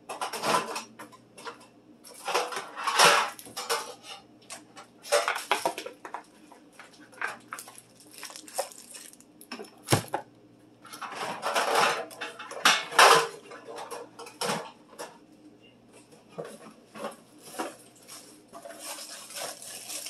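Food packages and boxes being handled and moved around in plastic baskets on a wire pantry shelf: irregular rustling, rattling and knocks, with a sharp knock about ten seconds in.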